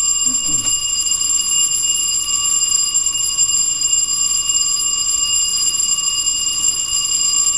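Building fire alarm bell ringing loud and unbroken, set off by a manually pulled fire alarm.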